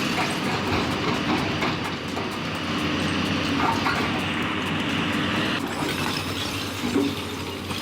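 Heavy excavator working, its diesel engine running under a fast, continuous mechanical clatter. The high hiss drops away about five and a half seconds in.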